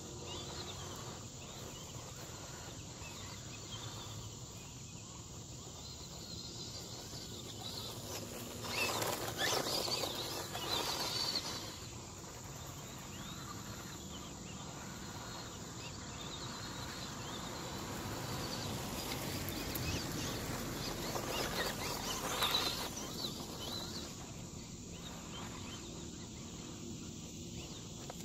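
Steady outdoor insect and cricket noise, with two louder swells of a vehicle going by, one about a third of the way in and one around three quarters of the way through.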